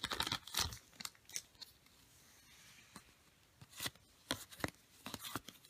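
Baseball trading cards handled and flipped through by hand: short card-stock slides and snaps. There is a cluster of these in the first second, a quiet spell in the middle, and another cluster near the end.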